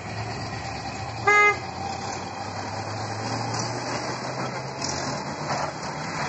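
A car horn gives one short honk about a second in, over the steady low hum of a vehicle engine running.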